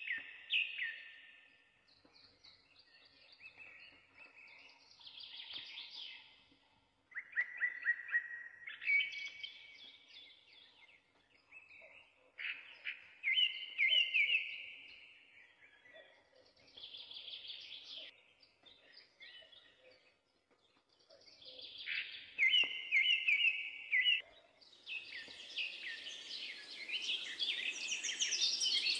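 Birds singing: a run of separate chirping, trilling song phrases a couple of seconds apart, with a steady high hiss coming in near the end.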